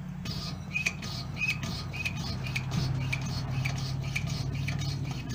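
Hand pump on a Coleman 426D camp stove's fuel tank being worked by hand: a short squeak and hiss on each stroke, about two strokes a second. The newly replaced pump plunger is building pressure in the tank.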